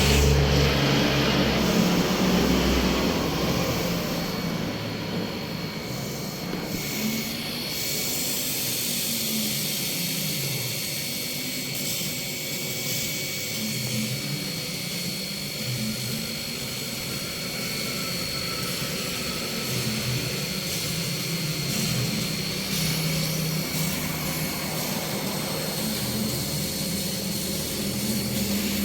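CNC laser cutting machine running: a steady drone with a constant high whine, and lower motor tones that rise and fall in pitch.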